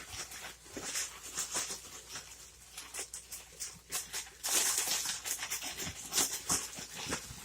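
A plastic zip-top bag holding biscuit pieces, sugar and cinnamon being shaken and handled: irregular crinkling and rustling, busiest about halfway through.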